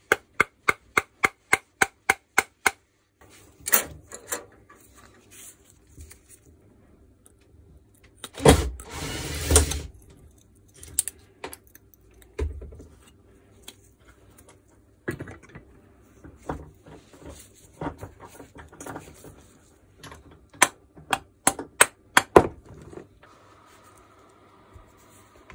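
Hand tools and small metal parts being handled on a workbench during an angle grinder repair. A quick even run of about a dozen sharp clicks comes first, then a louder clatter, then scattered clicks and knocks.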